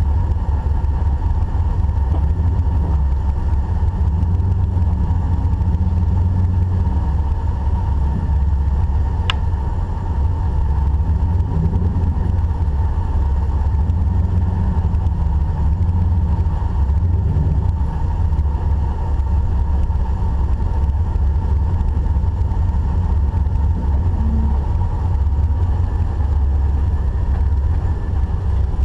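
A Jeep's engine running at low revs off-road, its pitch rising and falling a little with the throttle, with one sharp click about nine seconds in.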